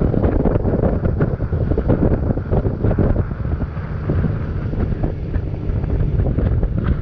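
Wind buffeting the microphone: a loud, continuous low rumble that flutters unevenly.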